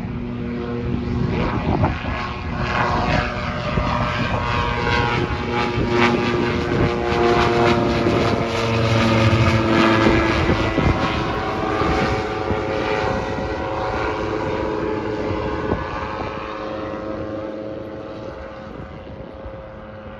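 SeaRey LSX amphibious light aircraft's engine and pusher propeller climbing out after takeoff and flying past. The sound grows louder to a peak about halfway through, then fades as the plane flies away.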